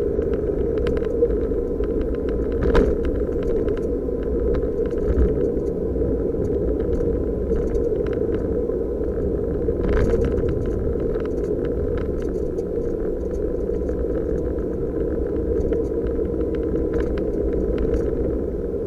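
Suzuki Jimny JB23's road and engine noise heard from inside the cabin while driving at a steady speed: a constant low rumble with light rattles and ticks from loose items and trim scattered throughout.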